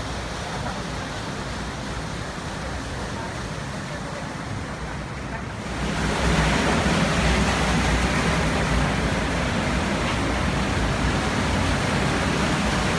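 River water rushing through and below a dam's gates, a steady rushing noise that becomes louder about six seconds in.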